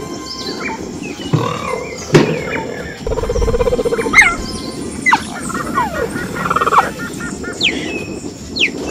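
Wild animal calls: a string of short high chirps and falling whistle-like calls, with a low pulsing call about three seconds in.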